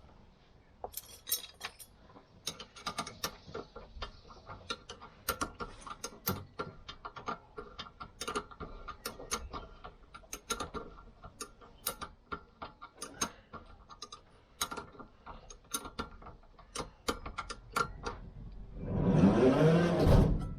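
A socket ratchet clicking in short, irregular runs with loose metal tool clicks, as fittings are wound in on a car's rear brake assembly. Near the end comes a loud, drawn-out sound of about a second and a half with a wavering pitch.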